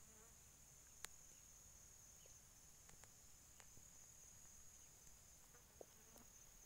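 Near silence: a faint, steady, high-pitched drone of insects, with one soft click about a second in.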